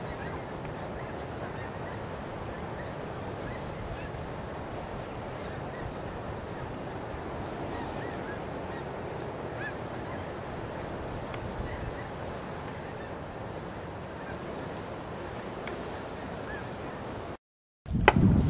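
A flock of geese calling overhead: many faint, overlapping honks and yelps over a steady background hiss. Near the end the sound cuts out briefly, then a loud bump or rush of handling noise comes in.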